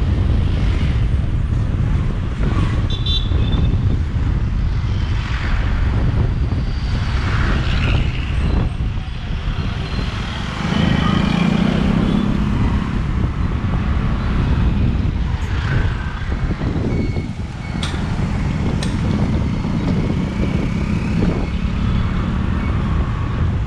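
Motorcycle riding through town traffic: a steady low rumble of the engine and wind on the microphone, with surrounding traffic mixed in. A steadier engine hum swells from about ten seconds in and again near the end.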